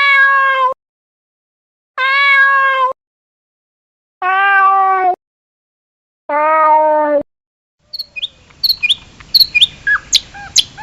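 Four separate animal calls, each just under a second long and meow-like, with complete silence between them. Short bird chirps start near the end.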